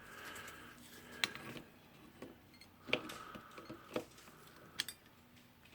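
Light metal clicks and scrapes as a tool works the holding ring out of a rotary hammer's cylinder housing, a few separate sharp ticks spread over several seconds.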